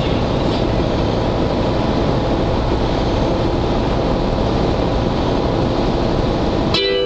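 Steady road noise inside a car cruising at highway speed, tyre and engine rumble running evenly. It cuts off abruptly near the end as music begins.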